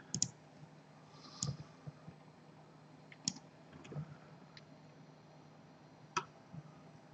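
Computer mouse clicking, a handful of short, scattered clicks at uneven intervals over a faint steady low hum.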